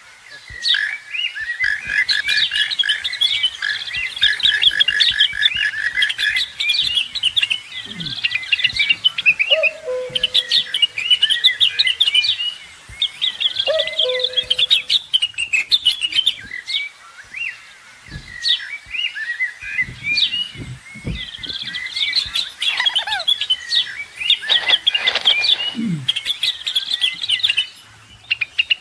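A dense chorus of many small birds chirping and twittering rapidly and continuously. Twice in the middle, a lower two-note call sounds through it, and near the end there is a downward-sliding call.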